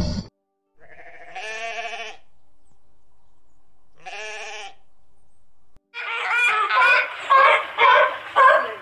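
A ram bleats twice, once about a second in and again around four seconds. Then, about six seconds in, a sea lion starts a rapid run of loud barking calls, several a second.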